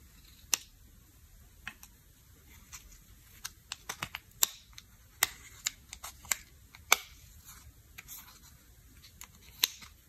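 Plastic spatula scraping and prying pressed makeup out of a compact's small metal pan: an irregular string of sharp clicks and short scrapes of plastic on metal and plastic.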